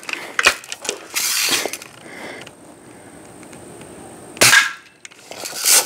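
Daisy Red Ryder lever-action spring-air BB gun being worked and fired. There is a faint click near the start and a short rasping noise about a second in, then sharp snaps about four and a half seconds in and again near the end.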